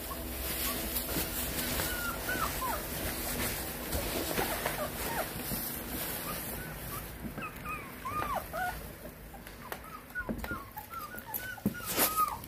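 A litter of 18-day-old Lycan Shepherd puppies whimpering and squeaking in many short, high cries that rise and fall, coming more often in the second half. Underneath is the rustle of the shredded-paper bedding as the puppies crawl through it.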